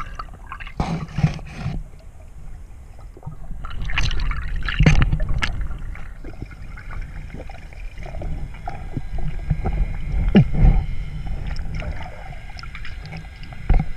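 Muffled underwater sound heard through a submerged waterproof camera housing: a constant low rumble of moving water, with a handful of sharp knocks and clicks scattered through it.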